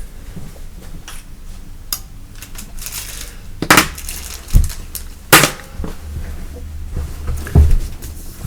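A series of sharp knocks and clatters over a low steady hum, the two loudest about a third and two thirds of the way in.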